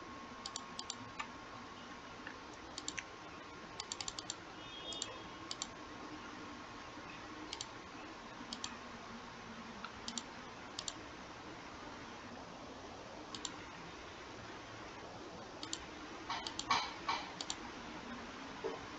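Scattered clicks of a computer mouse, often in quick press-and-release pairs, with a faster run of clicks about sixteen seconds in, over a faint steady background hum.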